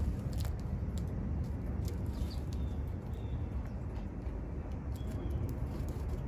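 Small songbirds giving a few faint, short high chirps, with a handful of light clicks, over a steady low outdoor rumble.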